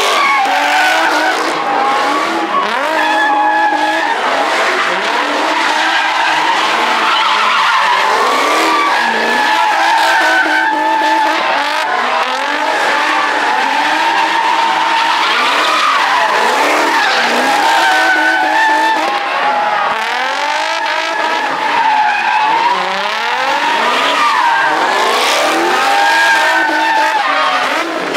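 Cars drifting: tires squealing without a break, the squeal wavering in pitch, over engines revving up and down.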